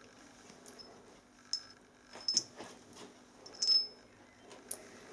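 Light metallic clinks and taps as a small silver-soldered metal hose fitting is handled and turned over, about four short knocks spread a second or so apart.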